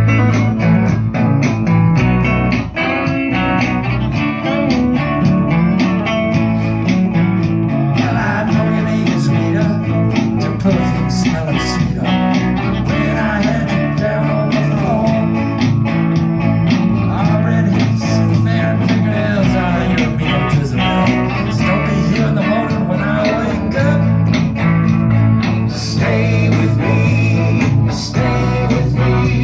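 A live blues-rock band playing an instrumental stretch: drums keep a steady beat under bass and rhythm guitar, while an electric lead guitar plays a solo with bent notes through the middle.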